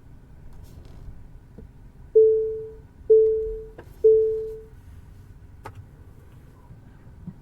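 Electronic chime sounding three identical tones about a second apart, each starting sharply and fading quickly. A few faint clicks are heard around them.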